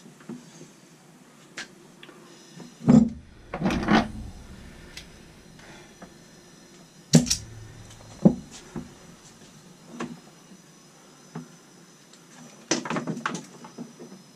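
Scattered clicks and knocks from handling a hose-fed soldering torch while working on overhead copper pipe. The loudest knocks come in a cluster about three to four seconds in, two sharp ones around seven and eight seconds in, and another cluster near the end.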